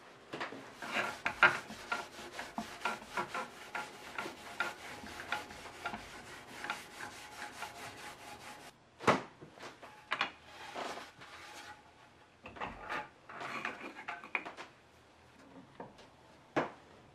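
A cloth rubbing briskly back and forth over an oiled, charred wooden board, in many quick strokes. A sharp knock comes a little past halfway, then shorter bouts of rubbing and a click near the end.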